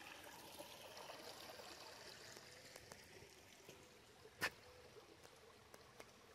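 Faint trickle of shallow water running over stones in a ditch, with a single short knock about four seconds in.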